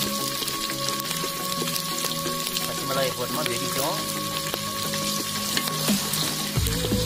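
Green chillies and whole spices frying in hot sesame oil in a large pot, with a steady sizzle and many small crackles as they are stirred with a wooden spoon.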